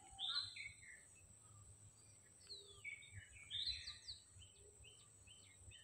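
Faint songbird chirping: a few scattered clusters of short, high notes, some sliding downward.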